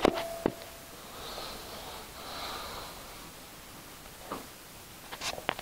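Soft breathing close to a phone microphone, with a few handling clicks and rustles near the end.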